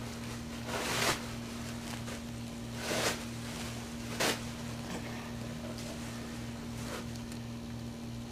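A steady low electrical hum, with four short rustling noises as a hand moves among the towels of a whelping bed, the sharpest a little past the middle.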